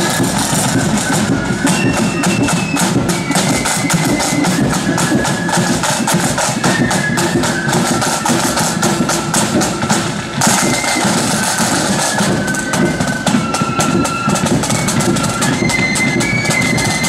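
Marching flute band playing: the flutes carry a tune in unison over rapid, continuous side-drum rolls and strokes.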